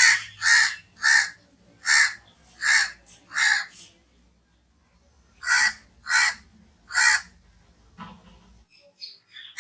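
Crow cawing: a run of six caws about two-thirds of a second apart, a pause of nearly two seconds, then three more caws.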